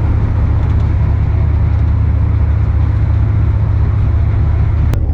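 Tour boat's engine running with a steady low rumble, and a single sharp click near the end.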